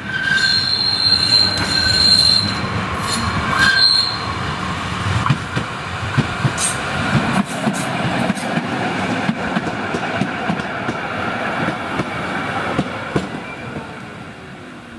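An articulated electric tram squeals its wheels in a curve as it approaches, with a high, steady squeal for the first four seconds or so. Then come the rumble and clicks of its wheels on the track as it passes close and runs into the stop, and a falling whine near the end as it slows.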